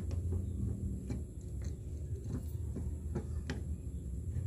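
Scattered faint metallic clicks and taps as a motorcycle's magneto flywheel rotor is handled and fitted onto the crankshaft, with a sharper click near the end, over a steady low hum.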